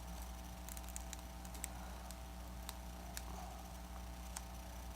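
Scattered light clicks and ticks of plastic pry tools and guitar picks against a Samsung Galaxy S5's glass and frame as the glued screen is pried up, over a faint steady hum.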